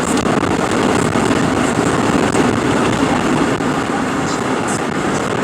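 Steady road noise inside a moving car.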